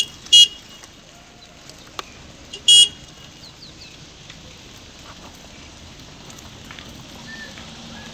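Vehicle horn tooting briefly twice, about two and a half seconds apart, over a steady low background noise.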